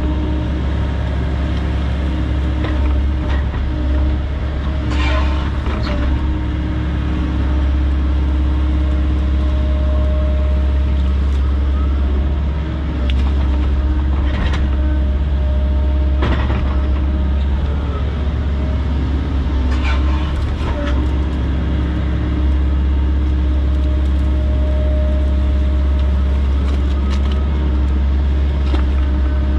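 Volvo 140 excavator's diesel engine running steadily while it digs, with its hydraulics working. A handful of sharp knocks break through, about five, fourteen, sixteen and twenty seconds in.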